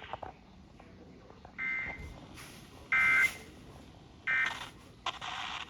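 Three short bursts of Emergency Alert System digital data tones (the buzzy SAME code), about a second and a quarter apart. They are typical of the end-of-message code that closes an alert. A short burst of hiss follows near the end.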